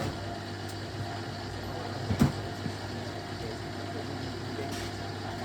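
Hoover Selectamatic 1100 washing machine running with a steady motor hum as its drum turns, and a single knock about two seconds in.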